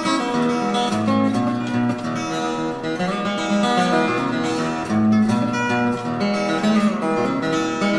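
Acoustic guitar picked and strummed, with bass notes changing under the chords.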